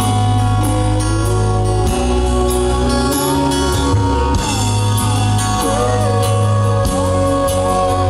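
Live band music: acoustic guitar, drum kit and bass, with a woman singing long gliding notes.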